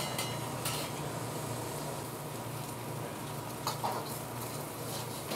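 Steady low background hum with a few faint clicks of cutlery against a bowl, about a second in and again near four seconds.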